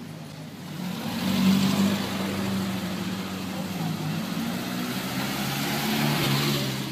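A rally car's engine running as the car pulls up and drives past close by, louder about a second in and again near the end as it passes.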